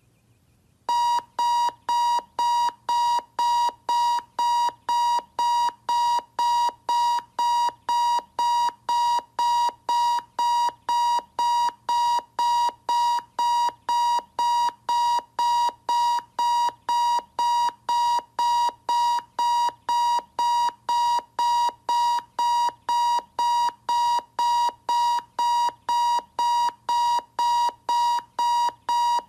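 Desk clock's electronic alarm beeping, about two evenly spaced beeps a second at one steady pitch, starting about a second in.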